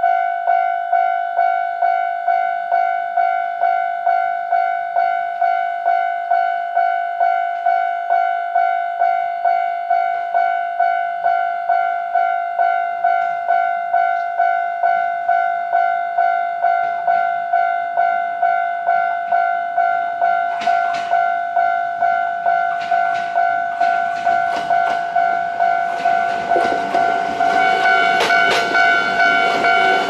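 Japanese level-crossing warning bell ringing in a steady, evenly repeating two-tone ding. From about two-thirds of the way in, clicks and then a growing rumble of an approaching JR East E127 series electric train build under the bell. The train is loudest near the end.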